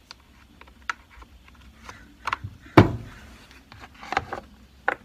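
Plastic clicks and knocks as the top cover of a Stihl MS390 chainsaw is set back over the air filter and pressed into place by hand, with one sharper knock near the middle.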